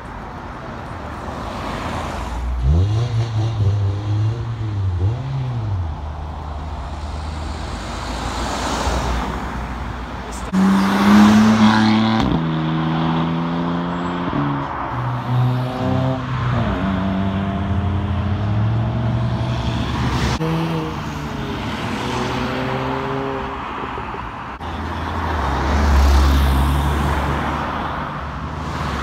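Several cars accelerating hard away past the listener one after another, engines revving up through the gears: the engine note climbs, drops back at each gear change and climbs again. The loudest passes come about eleven seconds in and near the end.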